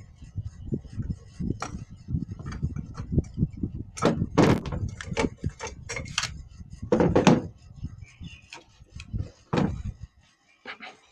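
Irregular knocks and clatter of a concrete hammer drill's plastic housing being handled and taken apart, with a cluster of louder, sharper knocks in the middle.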